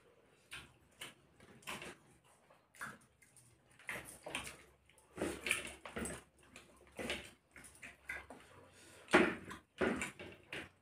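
Two people eating rice and fish curry with their hands: fingers squelching and mixing rice on their plates, with chewing and mouth noises coming in short irregular bursts. A louder burst comes about nine seconds in.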